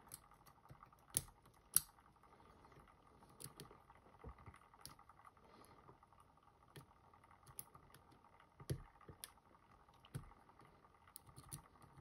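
Faint, irregular small metallic clicks and taps of a thin lock pick tapping the pins of a Van Lock padlock, a tubular-style lock held under tension by a music-wire tensioner. The pins have to be tapped again and again, which the picker puts down to tapered pins.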